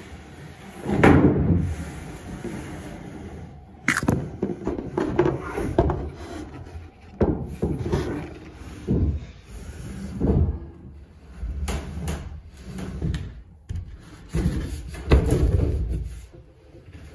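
A large thin board sheet being handled and shifted in a cramped boat interior: irregular wooden knocks, thumps and rubbing as it bumps against the woodwork and hull. The heaviest thumps come about a second in and again near the end.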